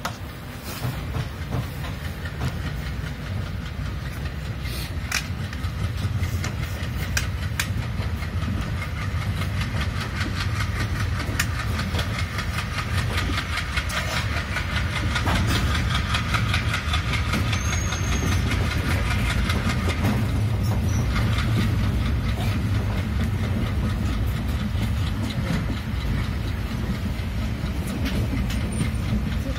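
Indian Railways passenger train running on the rails, heard from an open coach doorway: a steady low rumble of the wheels with rapid clickety-clack over rail joints and points. It grows louder toward the middle.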